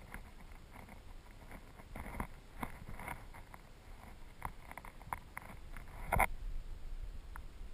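Underwater stream sound heard through a submerged camera: scattered soft clicks and knocks, the strongest about six seconds in, over a faint low rumble of the current.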